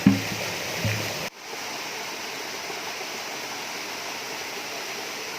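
Steady rush of falling water from a waterfall and its stream. Near the start there are a couple of brief low sounds, and about a second in the sound drops out for an instant before the steady rushing resumes.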